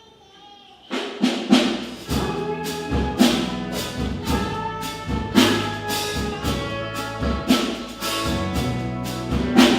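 Loud orchestral accompaniment music for a stage musical starts about a second in, with sharp accented hits over held chords.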